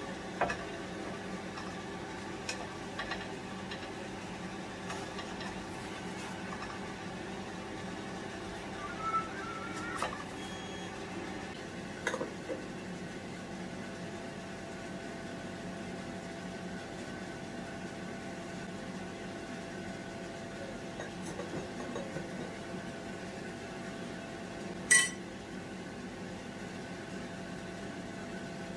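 Kitchen utensils clinking and tapping on a pan and dishes now and then, over a steady background hum; the sharpest, loudest clink comes near the end.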